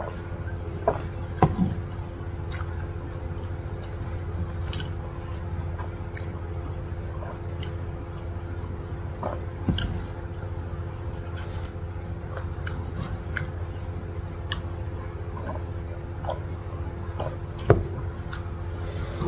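Someone drinking from a ceramic mug and swallowing, with small mouth and chewing sounds, over a steady low hum. A sharp knock near the end is the mug set down on the table.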